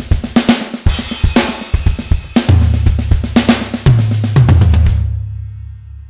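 Drum kit playing a groove of snare, bass drum and hi-hat. About halfway through, a low sustained tone joins under the drums and shifts pitch twice. The drumming stops about five seconds in, and the low tone fades away.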